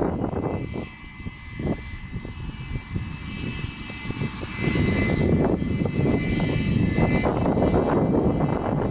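Wind buffeting the microphone outdoors, with a steady high-pitched hum from about a second in until about seven seconds in.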